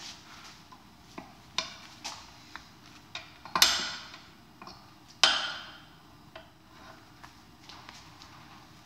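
Steel clinking and clanking as a red-hot 3/8 inch mild steel rod and a steel bending bar knock against a steel bench vise and its pin during hand bending. A string of light clicks, with two loud metallic clanks about three and a half and five seconds in that ring on for about a second.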